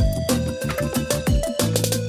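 Background music with a deep drum beat and a held, steady melody line.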